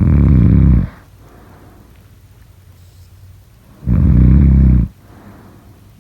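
Snoring: two loud, rough snores on the in-breath, each about a second long and about four seconds apart, each followed by a quieter breath out.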